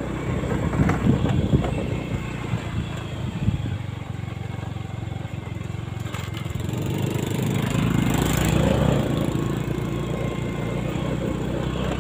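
A motorcycle engine running, rising in level about eight seconds in and then holding steady. Wind rumbles on the microphone in the first few seconds.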